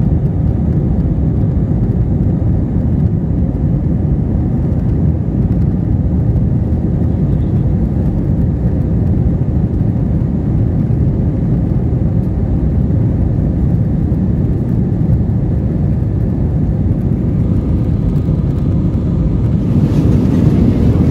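Steady engine and airflow noise inside the cabin of an Airbus A320-214 with CFM56-5B engines, heard from a window seat near the rear, in the minutes after takeoff from the runway. The noise grows a little louder and brighter near the end.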